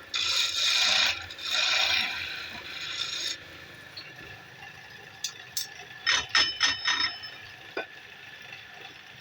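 A woodturning tool scraping against wood on a lathe in a few passes, two strong ones then a weaker one, followed by a quick series of light clicks and a single knock.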